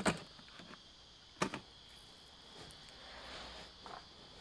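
Two sharp clicks, one right at the start and one about a second and a half in, over a faint steady high-pitched whine.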